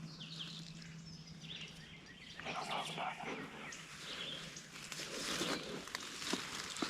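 Woodland ambience: songbirds chirping, with rustling in between and two short sharp clicks near the end.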